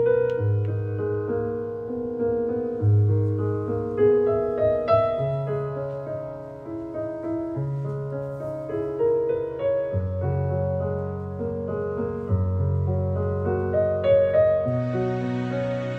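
Background music: a slow piano piece, notes changing every second or so over held bass notes.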